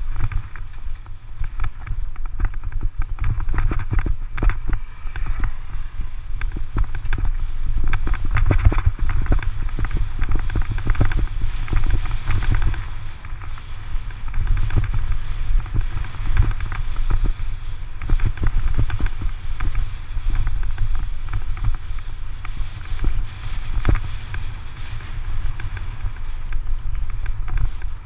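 Bicycle riding over a rough dirt-and-gravel road: wind rumbling on the camera's microphone, with constant rattling and crunching of tyres and frame over loose stones.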